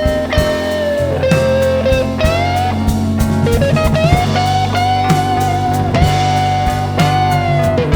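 Instrumental break of a live band song: a held lead melody with slow pitch bends over steady bass and drum kit.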